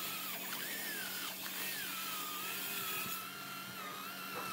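Wood lathe running: a steady motor hum under a high, wavering tone and hiss as a turning tool cuts the spinning wood.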